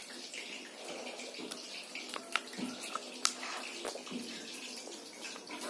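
Steady hiss with a few sharp lip smacks and clicks as a child licks a pink drink off a finger and sips from a small plastic cup, two of them standing out about two and three seconds in.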